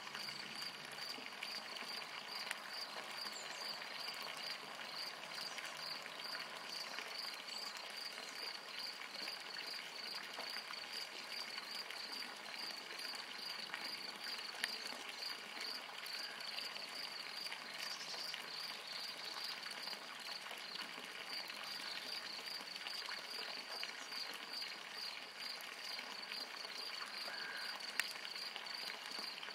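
Steady insect chirping, a fast even pulse high in pitch, over a faint wash of outdoor background noise, with a few faint clicks.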